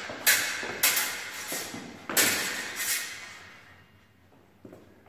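Steel rapier blades clashing in a rehearsed stage-combat exchange: about five sharp, ringing clashes in the first three seconds, each one ringing out before the next.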